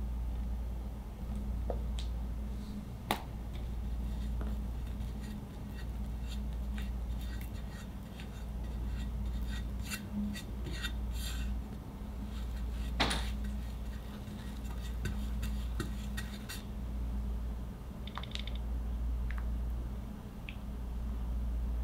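Small clicks, taps and light scrapes of a metal offset spatula spreading buttercream over a cake layer on a turntable, over a steady low hum. Two sharper clicks stand out, one a few seconds in and one past the middle.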